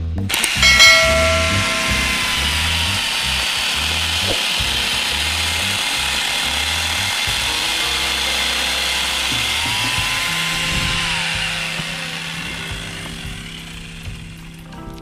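Electric angle grinder fitted with a chainsaw bar and chain, running at full speed and cutting through a green tree branch with a steady high whine. Near the end the motor winds down, its pitch falling as it stops.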